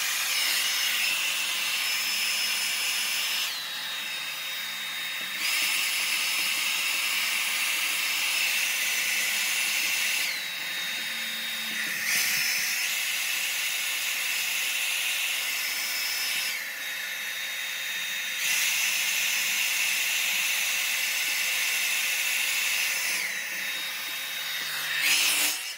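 Handheld hair dryer blowing steadily with a high motor whine. About every seven seconds the whine drops in pitch and the sound eases for a second or two, and it cuts off suddenly at the end.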